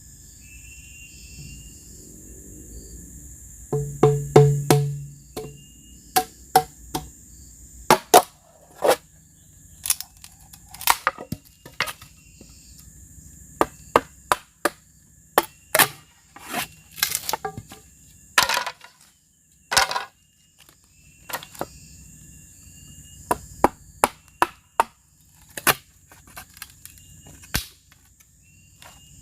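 Irregular sharp knocks of tools striking bamboo while it is worked, dozens of separate strikes at uneven spacing, some ringing briefly.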